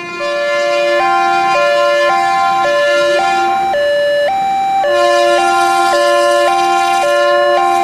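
Electronic two-tone signal, alternating between two pitches about twice a second like a siren, over a steady held lower tone that drops out for about a second in the middle.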